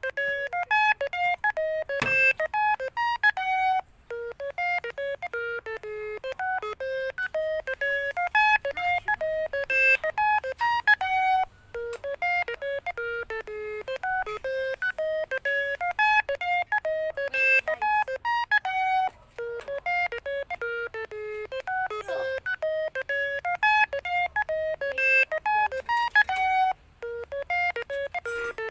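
Music: a fast melody of short, clean beeping electronic notes, several a second, in a looped phrase that pauses briefly about every seven and a half seconds.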